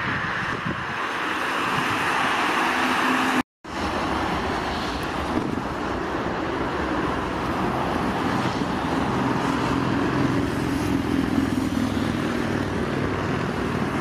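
Boeing 737-800's CFM56-7B jet engines running at takeoff thrust during the takeoff roll on a wet runway: a steady, loud rush with a low drone underneath. The sound cuts out completely for a moment about three and a half seconds in.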